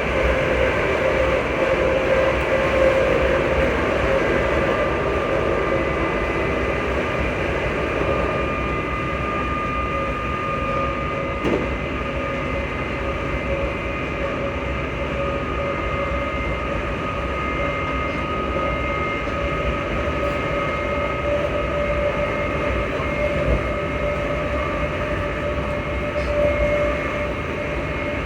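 Class 334 electric multiple unit under way, heard on board: the traction motors whine in several steady tones over a continuous rumble of wheels on track. The whine rises slightly about a third of the way in and then holds steady.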